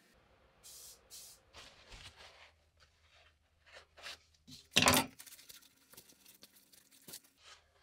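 Blue paper shop towel rustling and crinkling in gloved hands as a small part is wiped in it: a run of short rustles, with one louder crumple about five seconds in.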